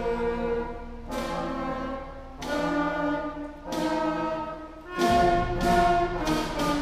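Beginning school concert band of saxophones and brass playing a tune in long held chords, each starting with a fresh attack about once a second, growing louder about five seconds in with quicker short notes near the end.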